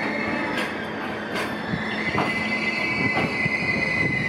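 Freight container flatcars rolling slowly over the yard tracks, their steel wheels squealing in a steady high tone, with a few sharp clacks as they pass over rail joints and points.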